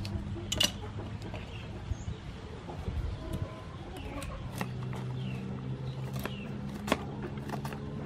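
Kitchen knife cutting and peeling the skin off a pumpkin, with scattered sharp clicks and scrapes, the loudest about half a second in and again near the end. Birds chirp faintly in the background over a steady low hum.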